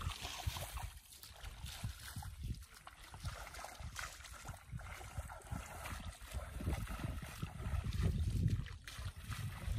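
Bare feet sloshing and splashing through shallow, ankle-deep floodwater over grass, in uneven steps, with a low rumble underneath.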